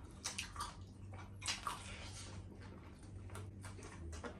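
Close-up eating sounds: chewing and wet mouth sounds, with a few short scattered clicks and smacks.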